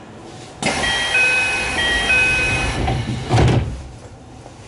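Doors of a Kintetsu 9820-series train closing: a sudden hiss of air as the door engines work, a two-note door chime sounding twice, then the doors shutting with a thump about three and a half seconds in.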